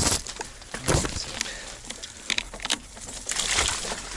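Wet leaves and branches brushing and scraping against a mountain bike and the rider's action camera, with irregular crackles and knocks. The loudest swishes come near the start and about a second in.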